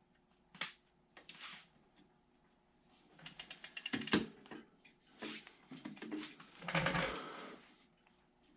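Bicycle parts handled while a greased pedal is fitted to a BMX crank by hand: scattered metal clicks and knocks, with a quick run of ratchet-like ticks, about ten a second, around the middle.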